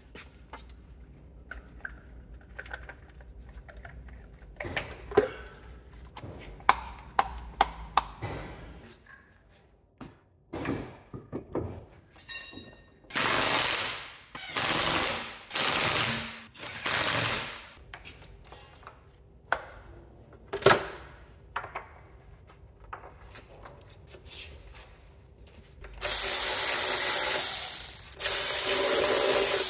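Workshop tool work: light clicks and knocks of parts being handled, then four loud bursts of a power impact wrench on the wheel nuts, each about a second long, and a longer run of a power tool near the end.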